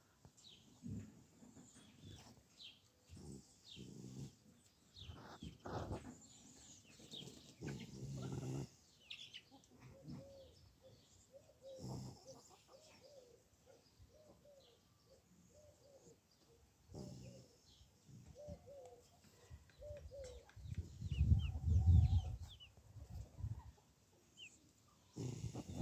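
Hens clucking in a soft repeated series, with small birds chirping. A louder low rumble close to the microphone comes near the end.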